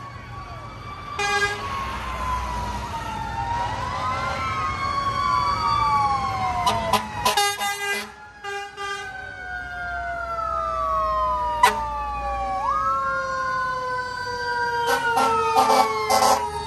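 Several fire truck sirens wailing at once, their rising and falling sweeps overlapping, with short blasts of air horn about a second in, around seven to eight seconds in, and again near the end. The heavy trucks' engines rumble underneath as they pass.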